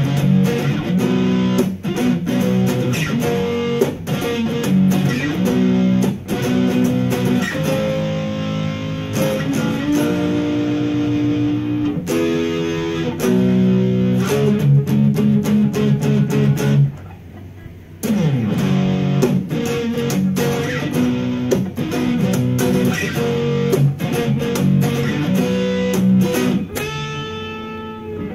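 Electric guitar played solo, picking a melody over chords that change every second or two. It drops away briefly about two-thirds of the way through, and a held chord rings out near the end.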